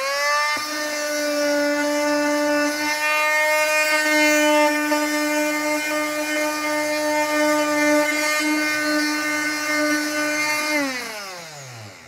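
Porter Cable PC250MT corded oscillating multi-tool with a triangular hook-and-loop sanding pad, sanding a wood block. The motor spins up at the start, runs with a steady buzzing hum, and is switched off about a second before the end, its pitch falling as it winds down.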